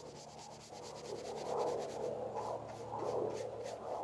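Paintbrush bristles rubbing oil-based black stain onto a wooden layout fascia in repeated strokes, rising and falling in loudness.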